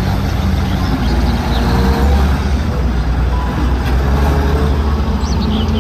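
Heavy diesel engine of a cab-over dump truck running with a deep, steady rumble.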